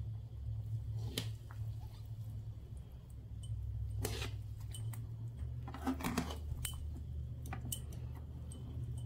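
Metal spatula stirring a simmering curry in a frying pan, scraping and clicking against the pan several times, over a steady low hum.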